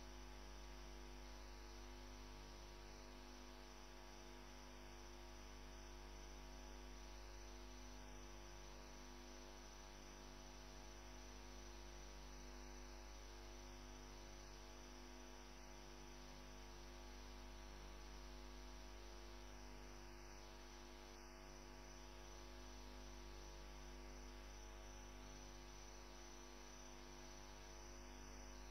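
Near silence except for a steady electrical mains hum with many overtones and a faint hiss on the audio line.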